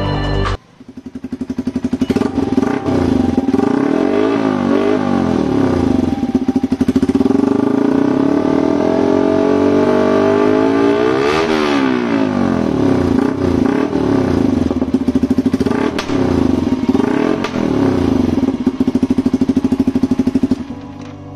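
Yamaha R15 V3's single-cylinder engine running through an aftermarket SC Project short silencer: idling, then blipped several times, with one long rev rising to a peak and falling back about eleven seconds in. The sound starts abruptly about half a second in and cuts off abruptly near the end.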